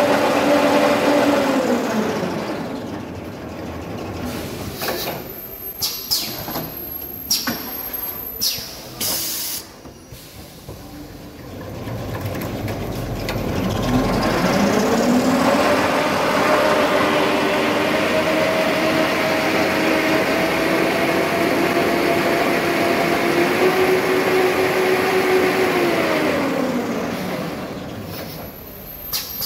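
Toilet paper rewinding machine running with a steady hum that falls in pitch as it slows to a stop about two seconds in. During the pause come scattered clicks and knocks and a short hiss, then the machine winds back up with a rising whine about fourteen seconds in, runs steadily, and slows down again near the end.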